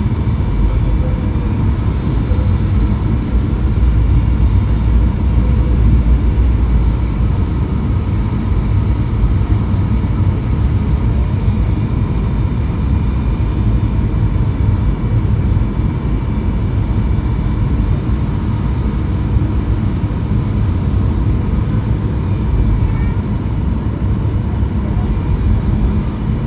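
Steady airliner cabin noise during the descent to landing: a low engine and airflow rumble with a faint steady whine above it, heard from inside the cabin.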